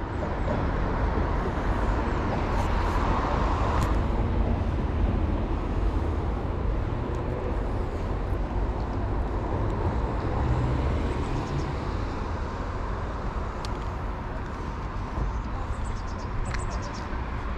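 Steady rumble of road traffic passing over a nearby road bridge.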